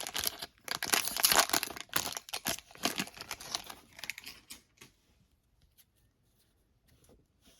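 Plastic cellophane wrapper of a football trading-card pack crinkling and tearing as it is opened, with dense crackling that stops about four and a half seconds in. After that there are only a few faint ticks.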